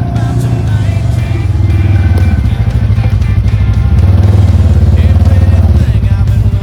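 ATV engine running, a loud pulsing throb that grows louder about four seconds in, with music over it.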